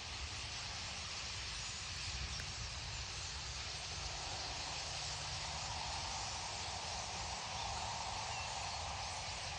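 A very large flock of perched birds calling all at once, heard as a steady, even hiss of countless overlapping calls.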